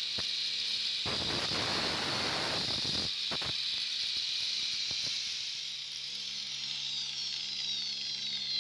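Electric angle grinder running with a steady high whine, its green disc grinding a steel part: a long grinding pass about a second in lasting some two seconds, then brief touches a little past three seconds and at five seconds, after which it spins free.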